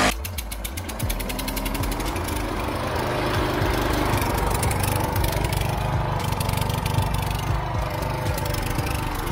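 Petrol push lawn mower's small engine running steadily, with an even low pulsing.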